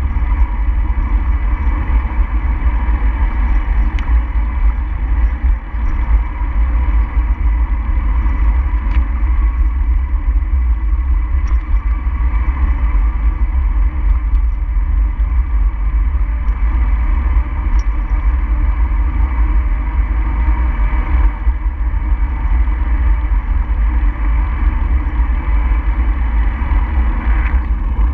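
Steady low rumble of wind and road noise on a moving camera, with a few faint ticks.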